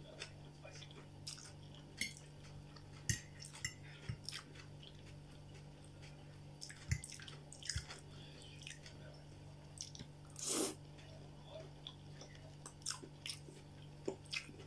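Close-up chewing and mouth smacks of a person eating stewed cabbage and potatoes, with scattered short clicks of a fork against the plate. There is one longer, noisier rush about ten and a half seconds in, and a steady low hum underneath.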